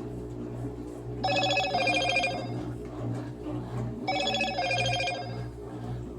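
A telephone ringing twice, each ring a warbling electronic tone about a second and a half long, over a steady low hum from a Consul Facilite CWK11 washing machine running.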